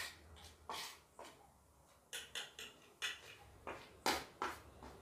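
Metal spoon scraping and tapping against a ceramic plate as it stirs dry gram flour and other powders together, in a quick, irregular series of short strokes.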